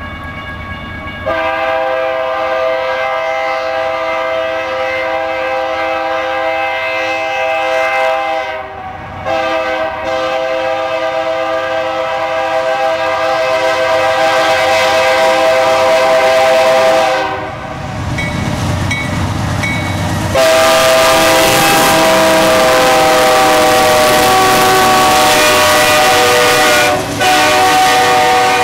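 Santa Fe Warbonnet diesel locomotive's multi-note air horn sounding long blasts for grade crossings, with short breaks between them. In the last third the noise of the train passing close grows loud under the horn.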